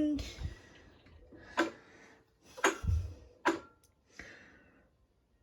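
Power wheelchair being maneuvered slowly: three sharp clicks about a second apart, with a low thump among them and a short hiss after.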